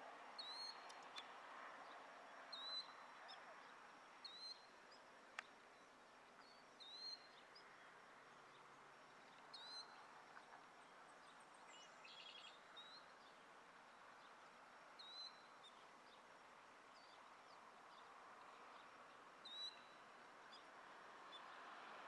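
Killdeer calling: a dozen or so short, high call notes, faint, one every second or two.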